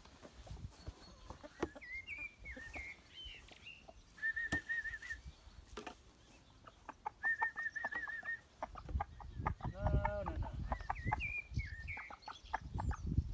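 Young Wyandotte chickens clucking and calling on and off, with two short trilling calls and a brief fuller call near the middle.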